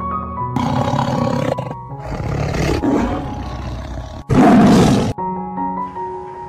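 Three loud, rough animal calls in a row over soft piano music, the last one the loudest; the piano carries on alone near the end.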